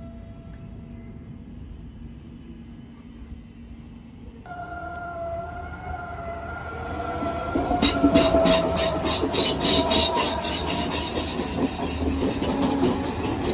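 DB class 423 S-Bahn electric train arriving and passing close by. Its electric drive gives a steady whine, with an abrupt cut to a new shot about a third of the way in. From a little past halfway the wheels clatter over the rail joints in a fast, regular clicking that grows loud as the cars go by.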